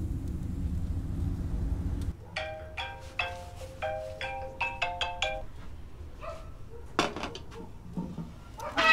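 A short tune of quick chime-like notes, about a dozen in three seconds, after a low rumble in the first two seconds.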